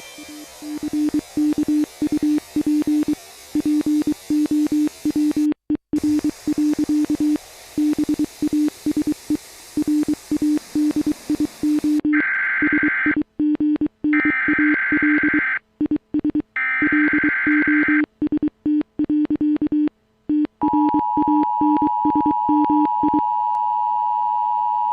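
Mock emergency alert broadcast tones: a low buzzing tone chopped into rapid stutters, then three short bursts of screeching data noise like alert header codes, and in the last few seconds a steady two-tone attention signal.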